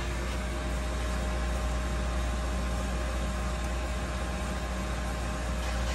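Doosan Puma TT1800SY CNC turning center running with a steady mechanical hum, a faint steady whine over it.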